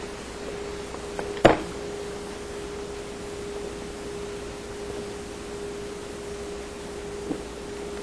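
Wiring connectors being unplugged from a dishwasher door: one sharp plastic click about one and a half seconds in, with a few fainter clicks, one near the end. Under it runs a steady hiss with a faint constant hum.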